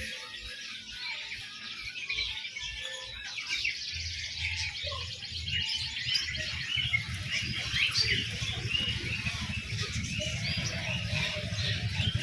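Many caged songbirds chirping together, a dense chorus of short high calls that grows busier about four seconds in. A low rumble runs underneath from that point.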